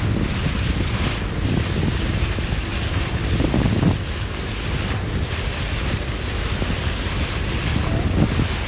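Wind buffeting the microphone, with the wash of sea water around a boat.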